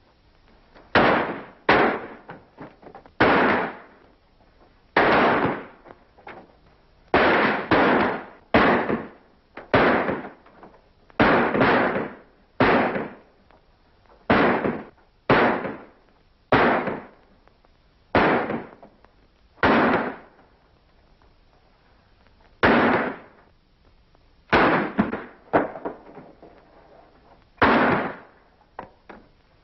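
Gunshots in a shootout: about twenty loud, sharp shots fired at irregular intervals, sometimes two in quick succession, each dying away quickly with a short echo.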